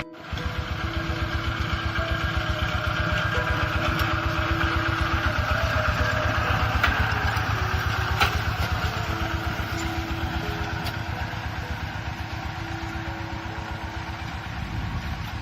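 Kubota tractor's diesel engine chugging steadily while ploughing. It grows louder toward the middle and then eases off a little.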